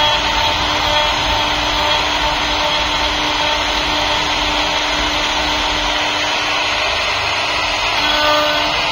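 CNC router machine running steadily while cutting a door design into wood, its spindle giving a constant whine over the rushing noise of the cut.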